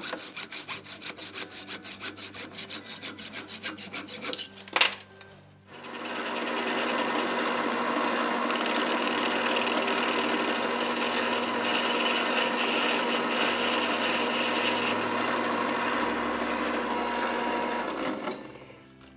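Metal being worked by hand in quick, even rasping strokes, about four a second, then a sharp knock about five seconds in. After that a power tool runs steadily for about twelve seconds with a high whine, cutting down a small steel pulley, and stops near the end.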